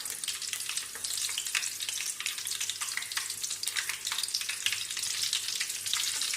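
Green chillies frying in hot oil with spluttered mustard seeds: a steady sizzle full of small crackling pops.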